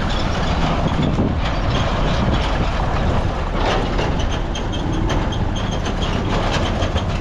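Busy road traffic: vehicle engines and tyres passing in a steady, continuous rumble.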